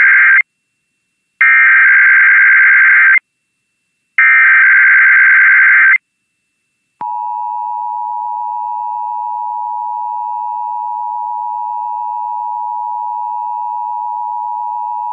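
Emergency Alert System test signal: the end of one SAME digital header burst, then two more data bursts of about two seconds each with short gaps between them. About seven seconds in, the steady two-tone EAS attention signal (853 and 960 Hz) starts and holds.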